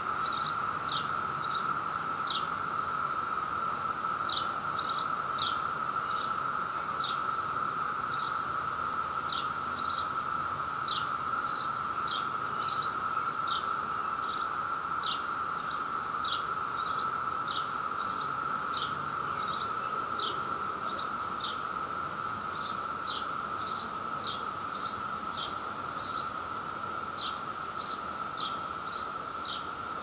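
Steady, unbroken drone of a chorus of Brood II periodical cicadas. Over it, short high chirps repeat about once or twice a second, likely from a small bird.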